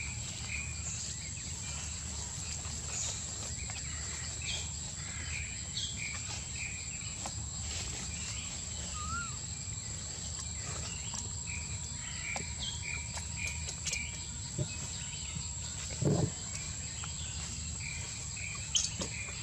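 Forest ambience: a steady high insect drone over a low hum, with scattered short bird chirps. A single low thump comes about sixteen seconds in.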